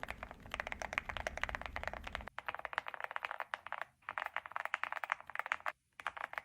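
Typing on an Epomaker Hi75 aluminum mechanical keyboard: a quick, steady stream of keystroke clacks with a couple of short pauses.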